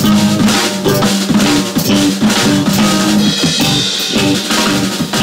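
Live improvised jazz from a quartet: saxophone lines over a busy drum kit, with electric guitar and bass.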